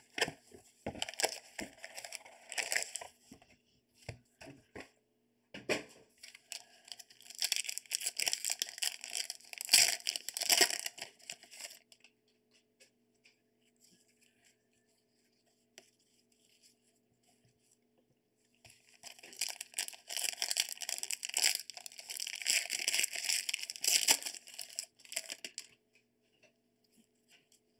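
Packaging crinkling and tearing in three bursts as trading-card boxes and packs are torn open and handled by hand, with a quiet stretch in the middle.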